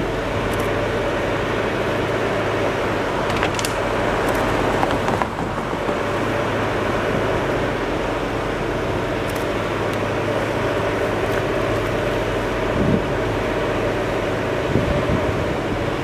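Steady mechanical hum with a constant rushing noise and a few faint ticks.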